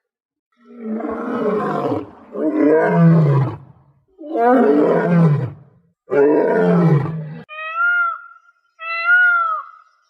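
A large animal gives four deep, rough roars, one after another, each falling in pitch. Near the end, short high arched calls follow.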